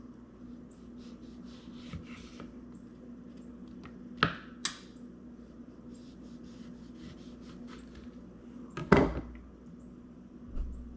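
A few separate knocks and clinks of dishware or utensils being handled while a dish is plated, over a steady hum. Two knocks come close together about four seconds in, and the loudest comes about nine seconds in.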